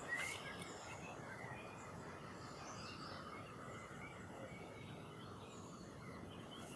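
Faint outdoor background noise with a few soft bird chirps.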